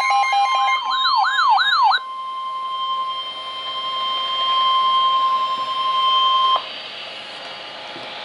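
An electronic siren wailing rapidly up and down over a steady tone, which stops about two seconds in. After it comes the NOAA Weather Radio 1050 Hz warning alarm tone alone, one long unbroken beep that cuts off suddenly, leaving radio hiss.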